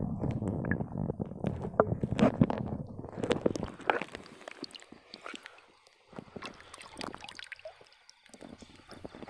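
A hand sloshing and splashing in shallow water while picking freshwater snails off the bottom, with many sharp clicks and knocks. It is busiest for the first few seconds, then goes quieter with only scattered clicks.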